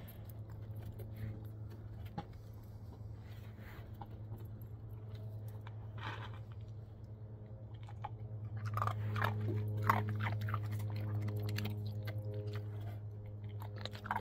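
A dog crunching and chewing dry kibble taken from a hand, the crunching busiest past the middle. A steady low hum runs underneath.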